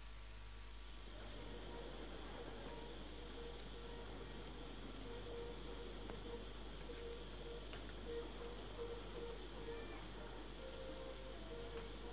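Crickets chirping in a steady high pulsing chorus, faint night ambience that comes in about a second in.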